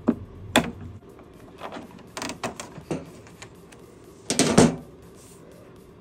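Irregular sharp clicks and knocks of a flat screwdriver prying an old refrigerator drain hose loose, with a louder clatter about four and a half seconds in.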